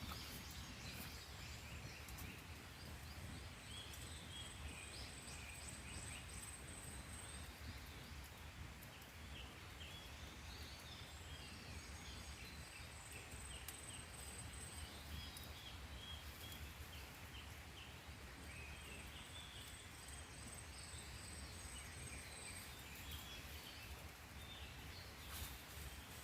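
Faint forest ambience: small birds chirping, and a high, thin steady trill that stops and starts again in stretches of several seconds, typical of an insect, over a steady low rumble.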